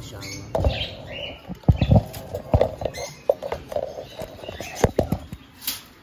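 Close handling noise: uneven knocks, scrapes and rustles right at the microphone, with a few short bird chirps from the cockatiels at the nest.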